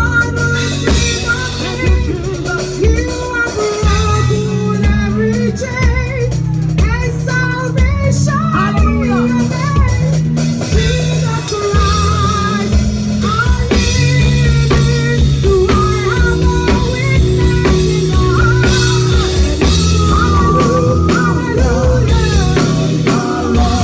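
Live worship band playing: a drum kit heard close up, with bass, keys or guitar, and singing voices carrying the melody over a steady beat.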